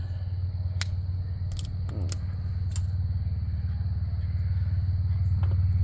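A steady low mechanical hum, with a steady high insect trill over it. A few sharp clicks in the first three seconds come from small metal parts of a dismantled mixing board being handled.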